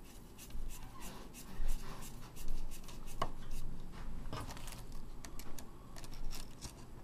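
Hands working small parts inside an Otterbox 3250 hard plastic case, making scattered clicks, taps and rubbing. The two loudest knocks come about three and four and a half seconds in.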